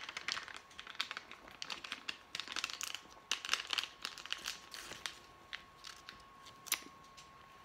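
Crinkling of a small plastic drink pouch squeezed and rolled up in both hands to press out the juice while drinking from it, an irregular run of sharp crackles.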